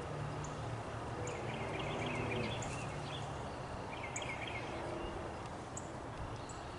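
Wind rumbling and hissing on the microphone, with small birds chirping in short high trills in the background.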